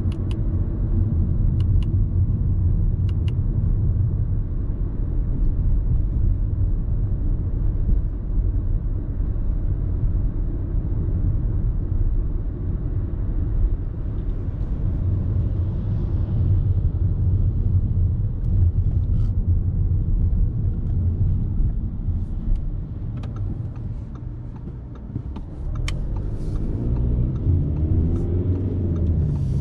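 Audi A3 30 TDI's 1.6-litre four-cylinder turbo diesel driving along with steady road and tyre rumble, with a few sharp light clicks. Near the end the level dips briefly, then the engine note climbs as the car accelerates.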